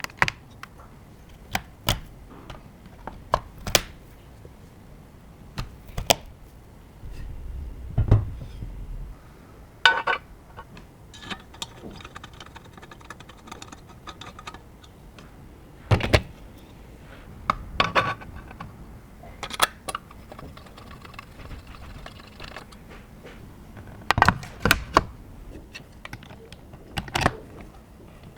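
Irregular clicks, taps and knocks of hard plastic and metal computer parts being handled and fitted together. There is a short low thud about eight seconds in and brief rattles around ten and eighteen seconds in.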